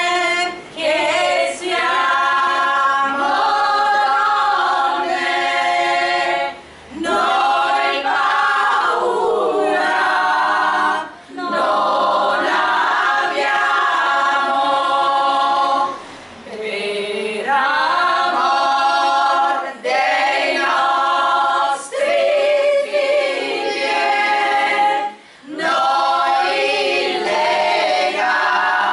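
A small women's choir singing a cappella, several voices together with no instruments, in long phrases broken by short pauses.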